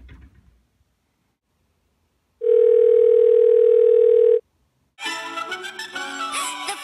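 A phone rings: one loud, steady electronic tone lasting about two seconds. About five seconds in, music starts with a lively, sliding melody.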